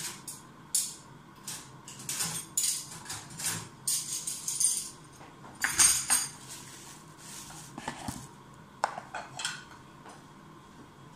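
Cutlery and dishes clinking and knocking on a kitchen counter in an irregular run of short clicks, thinning out near the end.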